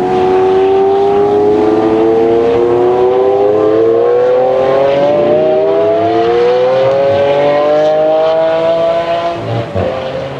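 Lamborghini Aventador's V12 under hard acceleration. The engine note climbs steadily, drops back at an upshift about five seconds in, and climbs again, then falls away near the end as the throttle comes off.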